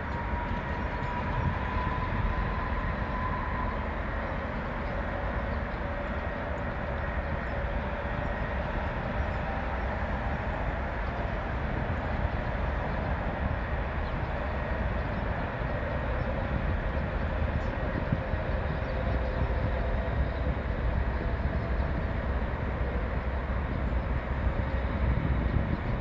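Steady rumble of distant vehicles, with a faint whine that rises slowly early in the sound and a lower whine that sinks slowly through the middle.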